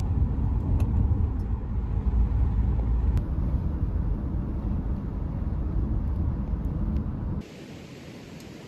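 Car driving, with a loud, steady low road rumble that cuts off suddenly near the end.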